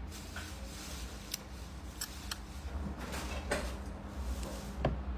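Faint, scattered clicks and light knocks over a low, steady hum of room noise.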